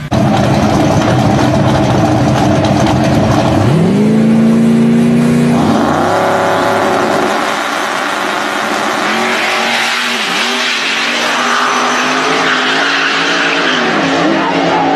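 Drag race car's big turbocharged engine running loud, its revs rising and held for a couple of seconds, then launching down the strip with the pitch climbing and dropping through several gear shifts as it pulls away.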